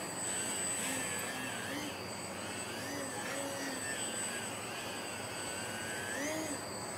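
Electric RC profile plane's Axi 2208/26 brushless outrunner motor and 9x5 propeller whining as the plane hovers nose-up, the pitch rising and falling in short swells with the throttle.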